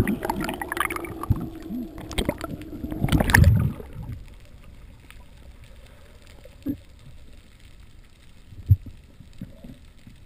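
Underwater recording from a GoPro: water splashing and bubbling around the camera housing as the diver goes under, loudest for the first four seconds, then a muffled underwater hush with a few soft low thumps.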